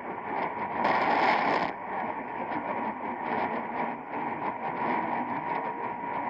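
AM radio hiss full of rapid crackling static from distant lightning, with one louder crash of static about a second in that lasts under a second.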